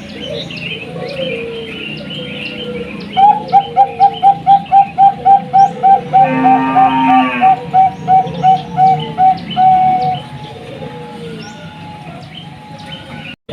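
Zebra dove (Bangkok-type perkutut) singing a fast run of about twenty short cooing notes, about three a second, for some seven seconds. Smaller birds chirp throughout. The sound drops out briefly near the end.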